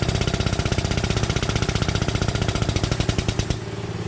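A fast, even mechanical rattle of repeated knocks over a steady engine hum while a chain pull is run on a wrecked car's crumpled front end; the rattle stops about three and a half seconds in and the hum carries on.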